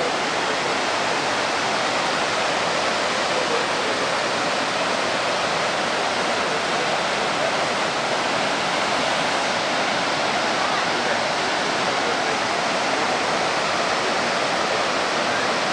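Waterfall: a large volume of water pouring down and splashing over rock, a steady, unbroken rush of noise.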